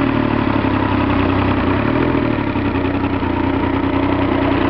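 Rebuilt Evinrude 90 two-stroke outboard motor idling steadily in neutral while run on a flushing water hose, with a brief slight rise in pitch about two seconds in.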